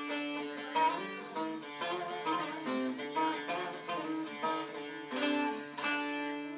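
Bağlama (Turkish long-necked saz) played solo: quick plucked melody notes over a steady ringing drone.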